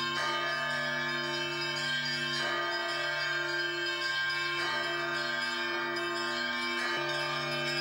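Cathedral bells ringing, with a fresh strike of several bells about every two and a half seconds, four times, each letting the tones ring on into the next over a steady low bell hum.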